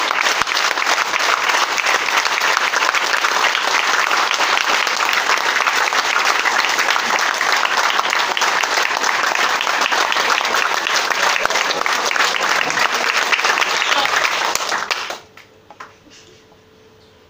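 A roomful of people clapping rapidly and continuously as a group clapping exercise, then all stopping at once about fifteen seconds in. A faint steady hum is left after the clapping.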